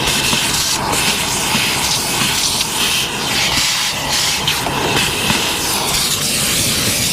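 Shop vac running, sucking dust and debris out of an RV refrigerator vent compartment. Its loud hiss swells and fades as the nozzle is moved around.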